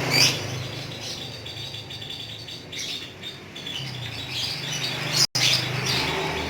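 Lovebird calling: shrill chirps about a quarter-second in and again just after five seconds, with quieter chattering chirps between, over a low steady hum.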